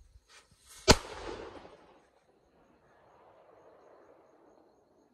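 A firecracker set inside a leaf going off: a single loud bang about a second in, its echo dying away over the next second.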